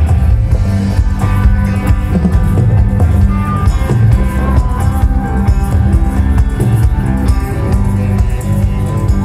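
Live rock band playing over an outdoor concert PA, with electric guitar and drum kit, heard from among the crowd some way from the stage.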